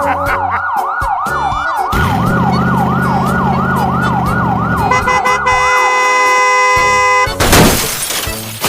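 Emergency-vehicle siren sound effect: a fast yelp, rising again and again about three times a second, which stops about six seconds in. A low buzzing engine-like rumble joins it in the middle, and a loud rushing burst of noise comes near the end.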